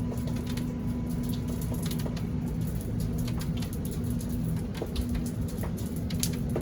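Raindrops from a light shower falling and dripping in scattered ticks, over a steady low hum.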